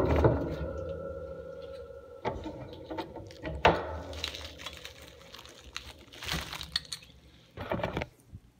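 Stainless steel honey extractor drum ringing and dying away over about two seconds after a knock. Then scattered clicks, knocks and crinkling of plastic wrap as the wrapped hand crank is handled inside the drum and lifted out.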